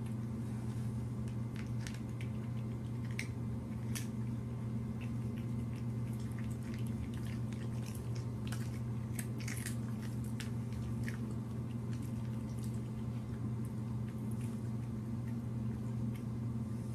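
A cat crunching pieces of dry kibble: irregular crisp crunches, over a steady low hum.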